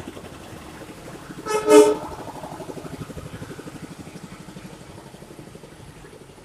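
A single short horn toot of about half a second, a little over a second and a half in. Under it a small engine runs with a steady rattle that slowly fades.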